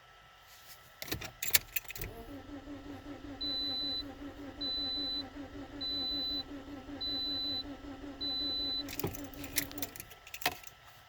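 Keys jangling as the ignition is turned, then a 2009 Toyota Corolla's four-cylinder engine is cranked on the starter for about seven seconds without firing. Its injectors are disconnected for a relative compression test, and the cranking has an even rhythm. A high electronic chime beeps five times during the cranking, and the keys jangle again as it stops.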